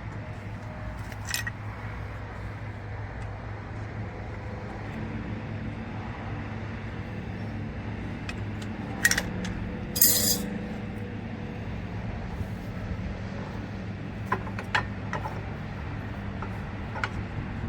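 Metal-on-metal clinks and a short scrape as brake pads and caliper hardware are handled at a car's disc brake. A few sharp taps are scattered through, the loudest and longest about ten seconds in, over a steady low hum.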